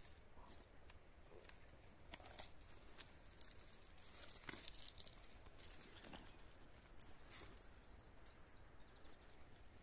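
Near silence with faint scattered clicks and rustles from hands handling the graft on the young mulberry trunk.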